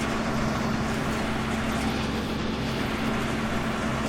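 A large engine running steadily at a constant speed, a low, even hum with a noisy wash over it.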